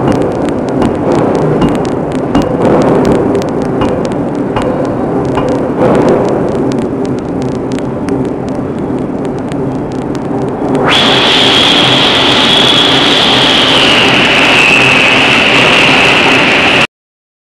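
Power forging hammer working a red-hot billet: a dense, irregular run of clacks and knocks over a steady machine rumble. About eleven seconds in, this gives way suddenly to a loud, steady hiss with a high whistling tone that sinks a little near the end.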